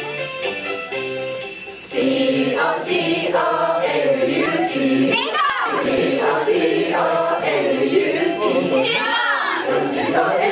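A short instrumental passage, then a group of voices singing together over music from about two seconds in.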